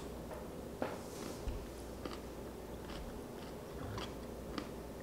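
Biting into and chewing a crunchy kosher dill pickle spear: a run of short, crisp crunches every half second or so.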